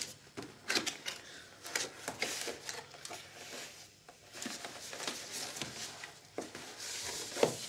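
A cardboard box being handled and opened by hand: its flaps and sides scraping and rustling, with scattered light taps and clicks.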